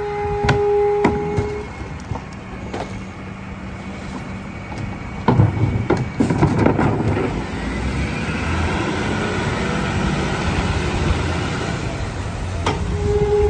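McNeilus rear-loader garbage truck running at the curb, with a steady whine at the start and again near the end. A trash can knocks against the hopper and garbage rattles in about five to seven seconds in.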